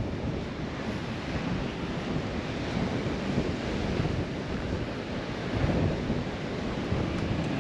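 Wind buffeting the microphone, a rough rumbling rush that rises and falls in gusts, mixed with the wash of surf on the beach.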